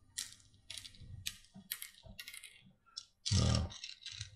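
Game seeds clicking one after another into the pits of a wooden ayo (mancala) board as they are sown by hand, about a dozen light clicks at roughly three a second. A louder, duller sound comes a little over three seconds in.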